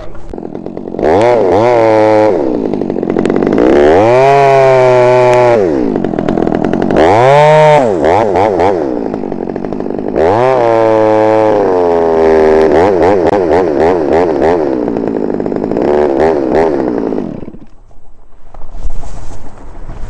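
Chainsaw running and revving, its pitch rising and falling over and over, then dying away near the end.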